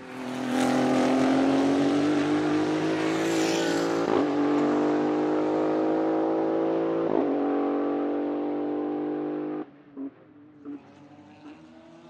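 Maserati MCXtrema's 3.0-litre twin-turbo V6 race engine pulling hard, its pitch climbing slowly with two brief breaks about four and seven seconds in. It drops off sharply near ten seconds, followed by two short pops and a fainter engine sound.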